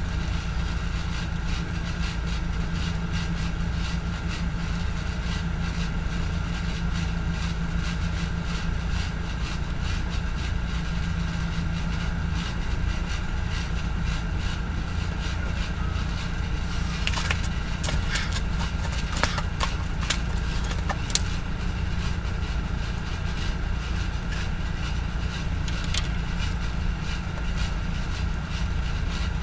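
Steady low rumble of an idling vehicle engine with a faint steady hum over it. A few sharp clicks come in about two-thirds of the way through.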